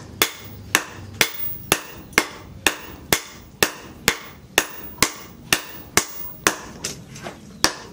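Hand hammer forging red-hot leaf-spring steel on a steel post anvil: a steady run of blows, about two a second, each ringing briefly.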